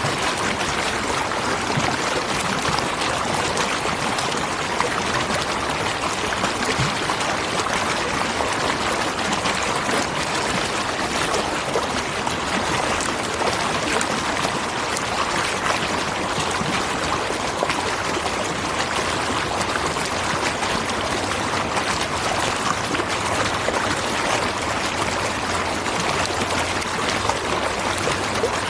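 Waterfall rushing steadily, an even wash of falling and splashing water that does not change.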